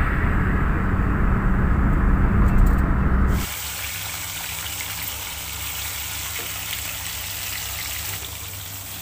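Low rumble of road noise inside a moving car, cut off abruptly about three and a half seconds in. It is followed by the steady sizzling hiss of whole fish deep-frying in hot oil in a wok.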